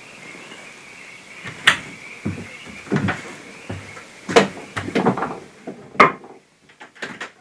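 Wooden cabin door and its screen door being shut and latched: a series of wooden knocks and clunks, ending in a sharp bang about six seconds in as the door closes. A steady high chorus of night wildlife from outside cuts off as the door shuts.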